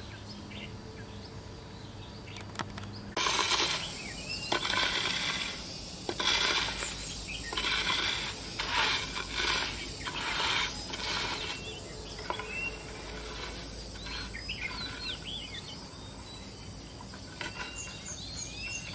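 A run of rough rustling bursts, each about half a second, goes on for about eight seconds. After that, short sweeping chirps of a small bird come now and then.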